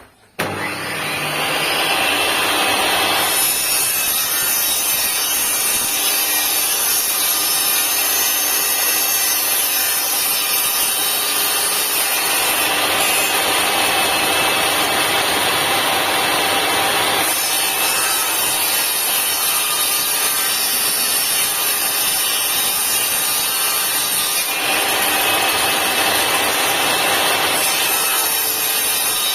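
INGCO TS15007 table saw switched on about half a second in, its motor winding up and then running at full speed as the blade cuts wood. The tone shifts several times as the blade takes the stock.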